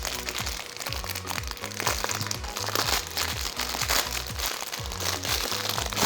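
Background music with a steady beat and a repeating bass line, over light crinkling of plastic and cardboard packaging being handled.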